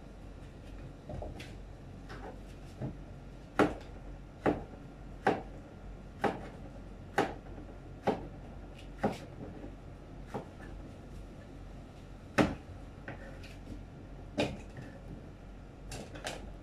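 Cleaver chopping a peeled bottle gourd on a cutting board: a series of sharp knocks of the blade striking the board, about one a second for a stretch, then more widely spaced, with softer taps in between.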